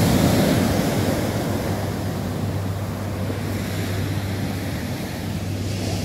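Pacific surf breaking and washing up a sand beach, a steady roar of water that is loudest at the start and eases a little toward the middle, with wind rumbling on the microphone.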